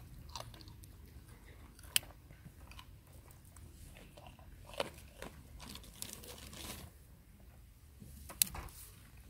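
Goats biting and crunching raw carrot sticks, a string of crisp irregular crunches with a few sharp snaps, the loudest about two seconds in and near the end.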